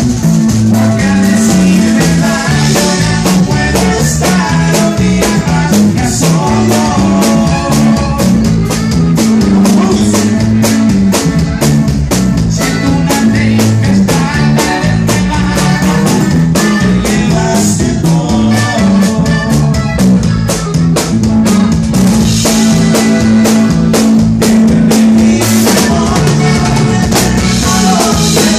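Live band music played loud, with a drum kit keeping a steady beat over low bass notes that step up and down.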